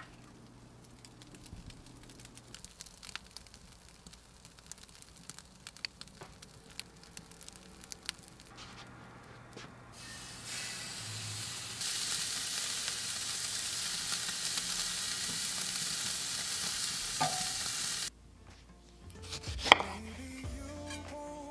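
Ribeye steak sizzling as it is laid on the hot grate of a kamado charcoal grill, after a few seconds of faint clicks from handling at the grill. The sizzle builds to a loud steady hiss and then cuts off abruptly. Near the end a knife chops through an orange onto a wooden cutting board.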